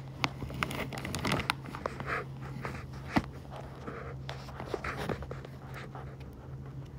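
Handling noise on a handheld phone's microphone: scattered clicks and short rustles, over a steady low hum.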